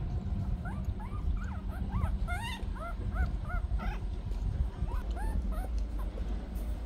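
Newborn puppies, eyes still closed, squeaking and whimpering as they jostle each other to nurse: a run of short, high, arched squeaks, thickest between about one and four seconds in and sparser after, over a steady low rumble.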